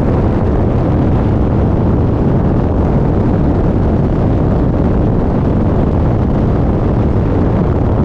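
Loud, steady rush of wind buffeting the camera's microphones at skydiving airspeed.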